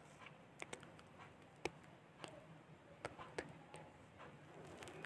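Near silence: faint room tone with a handful of short, faint clicks scattered through the first four seconds.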